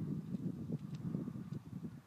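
Wind buffeting the microphone in uneven low rumbling gusts that ease off toward the end.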